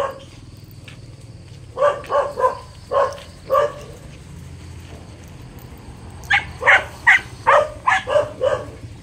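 Hunting dog barking in two bouts of quick barks, about five near the start and a faster run of about eight near the end, while on the scent of a small animal hiding in the brush.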